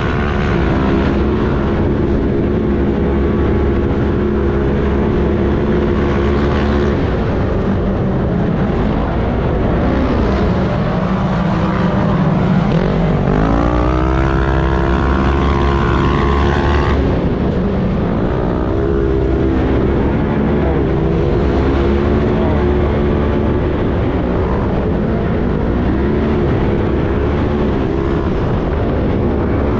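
Off-road race car's engine heard on board while racing across sand dunes, its pitch rising and falling as the throttle opens and closes, with a long climbing rev about halfway through, over steady wind and drivetrain noise.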